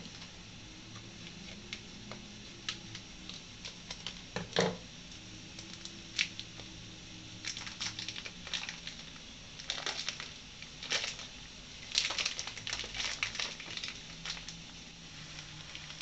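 Plastic food packet crinkling and rustling as it is handled and opened by hand, in a run of short crackles that come thicker and faster in the second half.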